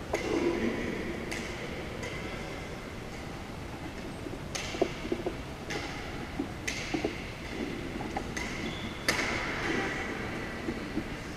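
Badminton play on a hardwood gym court: several sharp cracks of rackets striking the shuttlecock, a second or more apart, with short squeaks of court shoes on the wooden floor in between, over a steady background hum.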